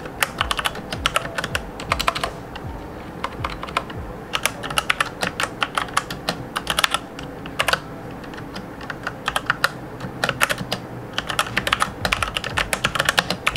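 Typing on a Cooler Master CK350 mechanical keyboard with Outemu brown switches: keystrokes in quick, irregular bursts with short pauses between them.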